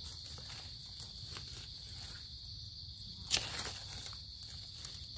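A steady high-pitched insect drone, with dry leaves rustling and crackling as a hand digs a mushroom out of the leaf litter; one sharper crackle comes about three seconds in.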